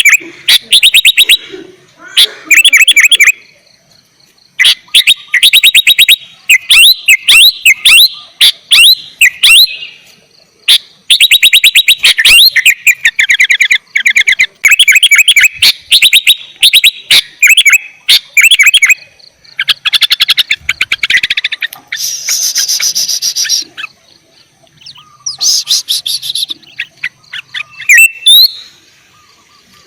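Sooty-headed bulbul (kutilang) singing loudly and continuously: fast trains of short chattering and whistled notes in bursts of a second or two, separated by brief pauses.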